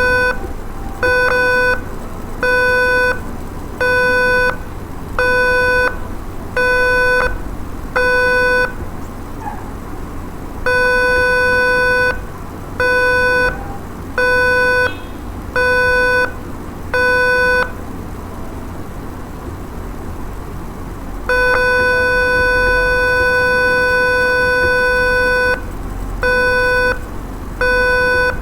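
Electronic buzzer of a homemade door-lock controller beeping about once a second, half-second beeps broken twice by a longer steady tone, the longer one lasting about four seconds: the door-open warning, sounding because the door has not been closed.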